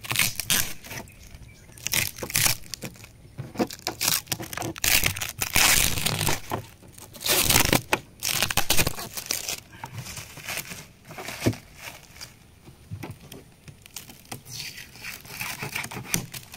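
Adhesive packing tape being torn off and thick cardboard packaging being pulled open and handled. It makes a run of irregular tearing, crinkling and crunching noises, busiest in the middle.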